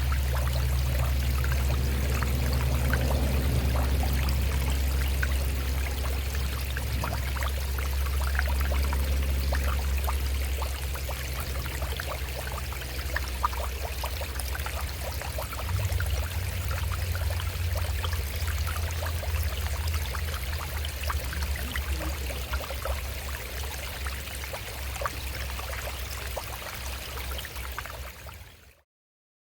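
Shallow stream running over rocks: a steady rush of water full of small splashes and trickles, over a low rumble that is heaviest for the first ten seconds or so and swells again briefly about halfway. The sound cuts off abruptly just before the end.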